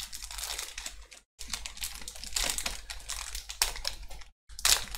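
Foil wrapper of a Pokémon booster pack crinkling as it is handled and torn open. The sound cuts out completely for a moment twice.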